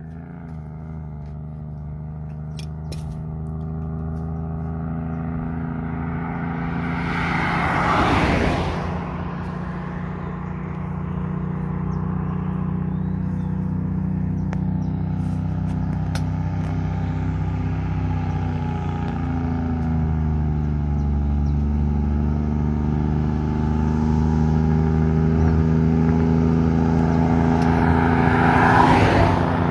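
Engine brake of a loaded heavy truck descending a long grade: a steady low drone that grows louder as the truck approaches, its pitch dropping once about two-thirds through. Two vehicles pass close with a whoosh, about a quarter of the way in and near the end.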